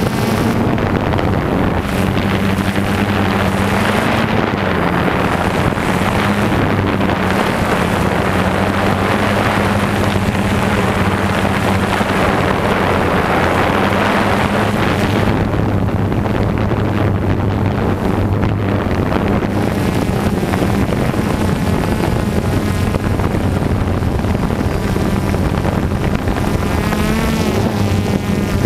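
DJI Phantom 2 quadcopter's electric motors and propellers buzzing steadily, heard up close from the GoPro mounted on the drone, with wind rushing over the microphone. The buzz's pitch wavers a little now and then, most near the end, as the drone adjusts its flight.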